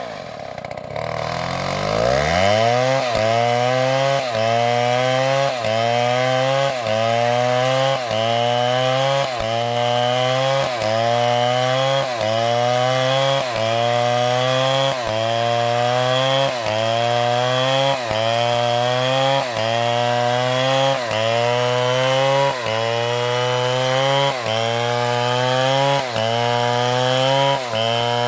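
Two-stroke chainsaw engine revving up from a dip about a second in. It then runs at high speed, its pitch sagging and climbing back about once a second.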